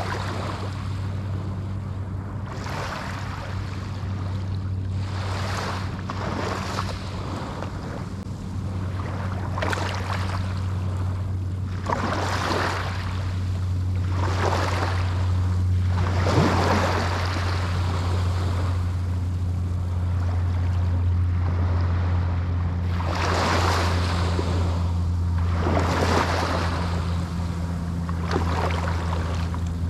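Small Atlantic waves breaking and washing up the sand one after another, a fresh wash every two or three seconds, over a steady low hum.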